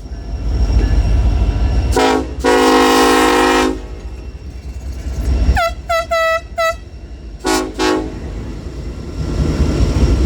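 Union Pacific freight locomotive's air horn played as a horn show: a short blast about two seconds in, a long blast held for about a second, then four quick higher-pitched toots and two short blasts near the end. The low rumble of the passing freight train runs underneath.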